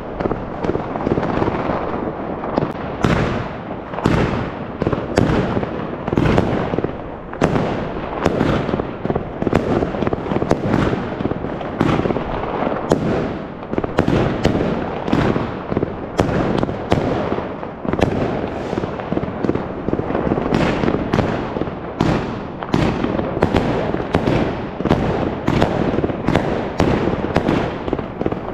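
New Year's Eve fireworks and firecrackers going off in a continuous barrage: frequent sharp bangs over an unbroken crackle, with no pause.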